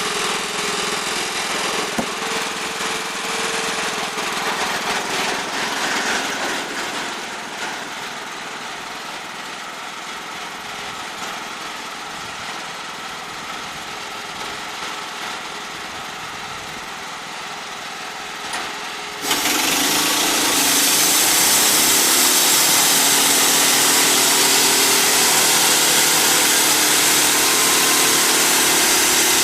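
Wood-Mizer portable band sawmill running steadily. About two-thirds of the way through it suddenly gets much louder, with a bright hiss as the band blade saws through the log.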